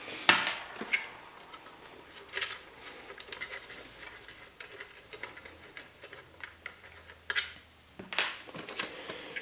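Scattered clicks, knocks and light scrapes of hardware being handled in a metal PC case while a DVD drive is fitted into a drive bay, with a sharp knock just after the start and another about seven seconds in.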